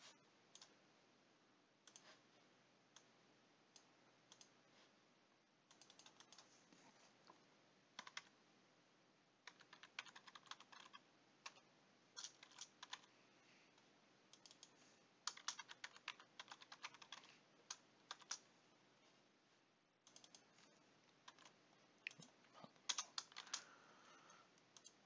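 Faint typing on a computer keyboard in short bursts of rapid key clicks, with a few single clicks between the bursts.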